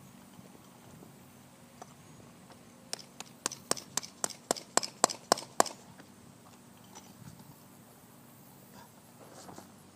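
A quick run of about a dozen sharp knocks, about four a second, lasting under three seconds.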